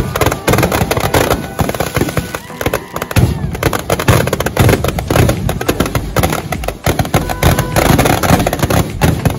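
Dense, rapid crackling and banging of firecrackers going off in and around a burning Ravana effigy, an unbroken volley of cracks, with music underneath.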